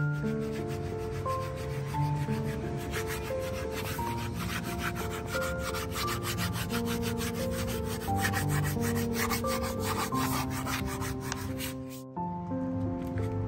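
Fast, even back-and-forth rubbing strokes of a hand tool on a hardboard panel, several strokes a second, starting about two seconds in and stopping shortly before the end. Melodic background music plays throughout.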